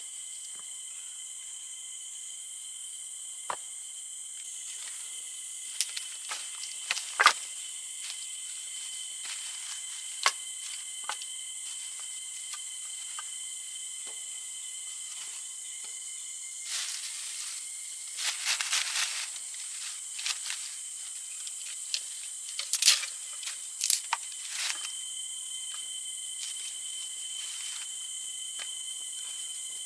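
Steady insect chorus in forest, a high buzzing drone at several fixed pitches. Scattered sharp clicks and knocks sound over it, with two short runs of rustling or crackling in the second half.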